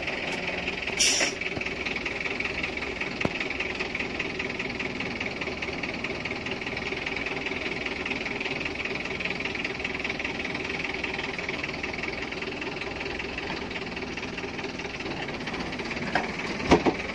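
Pickup truck engine idling steadily close by, with a sharp clack about a second in and a few knocks near the end.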